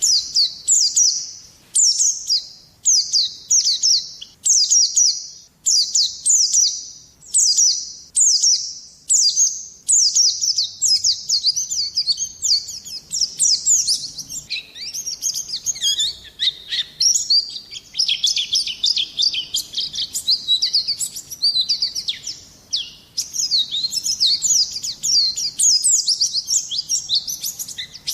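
Small songbirds singing: sharp, high chirps repeated about twice a second for the first ten seconds, then a denser, faster run of twittering and trills with lower notes mixed in.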